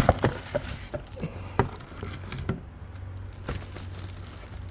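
Handling noise from unpacking a stick vacuum cleaner's plastic parts: a scattered series of light clicks and knocks, with a faint steady hum underneath.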